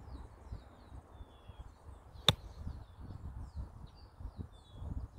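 A single crisp click of a Callaway MD4 wedge striking a Callaway Chrome Soft X golf ball on a partial wedge shot, a little over two seconds in. Birds chirp throughout over a low rumble.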